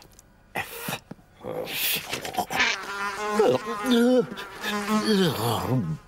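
Cartoon housefly buzzing, its pitch wavering and dipping as it flies about, starting about three seconds in and stopping just before the end, after a few short rustles of paper pages.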